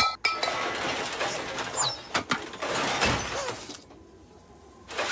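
Cartoon sound effects: a run of knocks, clinks and rattling clatter that cuts off suddenly about four seconds in, leaving a faint steady tone, with one more knock near the end.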